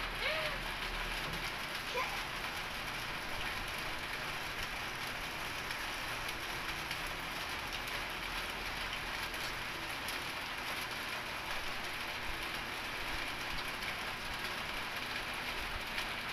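Steady, even hiss of background noise with a few faint clicks.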